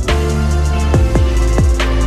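Electronic background music with a heavy beat: deep kick drums that drop sharply in pitch over a sustained bass, with light hi-hat ticks.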